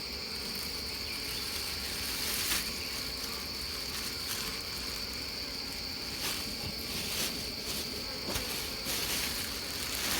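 Steady high-pitched drone of forest insects singing, with bees buzzing around the opened hive and a few light knocks of handling the comb.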